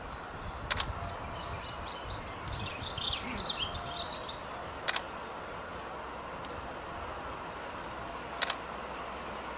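Three sharp single clicks a few seconds apart, camera shutters, over a low steady outdoor rumble, with a bird chirping for a couple of seconds near the start.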